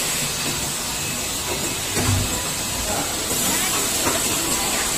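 Steady hiss of factory machinery running on an automated spoon molding and packing line, with a faint high steady tone over it. A single low thump comes about two seconds in.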